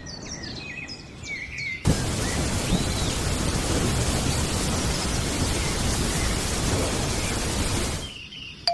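Short bird-like chirps, then about two seconds in a loud, steady rushing noise with no tone in it starts and runs for about six seconds before cutting off.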